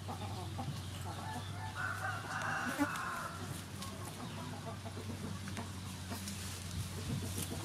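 Chickens clucking, with a rooster crowing once about two seconds in, over a steady low hum.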